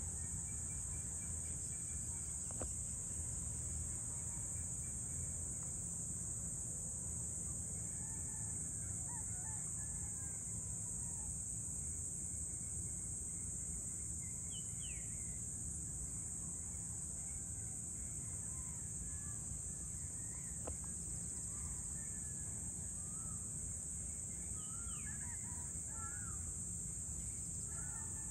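Dusk insect chorus, a steady high-pitched shrill of crickets, with birds calling and chirping on and off over a low, steady background rumble.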